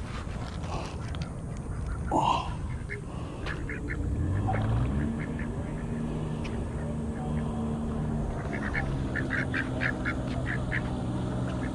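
Ducks quacking close by, with a quick run of short quacks near the end. A low steady hum runs underneath from about four seconds in.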